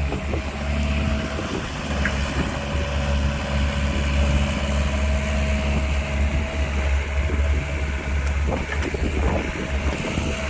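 A mini excavator's diesel engine running steadily, with a faint steady whine above it.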